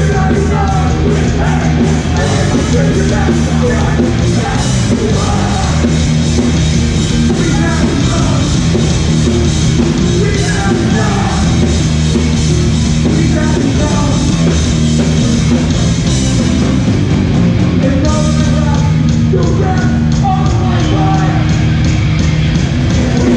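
Live hardcore punk band playing loud, with distorted guitars, bass and drums under shouted vocals.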